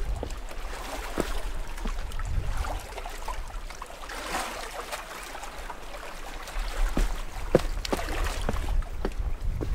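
Small sea waves lapping and trickling among shoreline rocks, with scattered light knocks and a low wind rumble on the microphone that grows stronger in the last few seconds.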